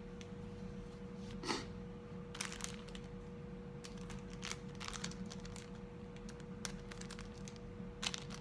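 Enamel pins and their plastic packaging being handled: scattered short rustles and small clicks, the loudest about one and a half seconds in, over a steady faint hum.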